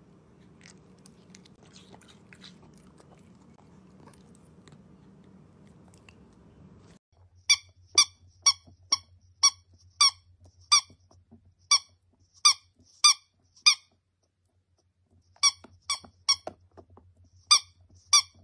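A dachshund puppy biting a squeaky bone toy, making it squeak in short, high squeaks about twice a second. The squeaking starts several seconds in, after a faint hum, and breaks off briefly partway through.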